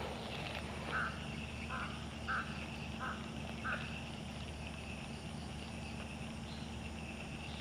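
Frogs croaking at a swamp pond: five short calls about two-thirds of a second apart in the first four seconds, over a steady high-pitched chorus that goes on throughout.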